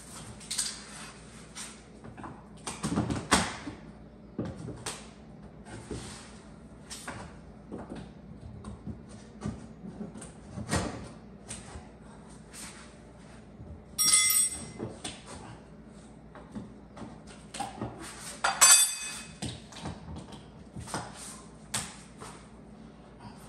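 Scattered knocks, taps and clatter of objects being handled, with two louder ringing metallic clangs about two-thirds of the way through.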